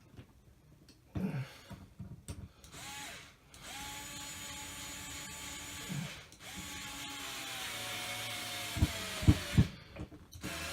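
Power drill driving the screws of a ceiling fan mounting bracket into the electrical box: a couple of short blips, then two runs of a couple of seconds each, the second dropping in pitch as the screw draws tight. A few sharp knocks follow near the end.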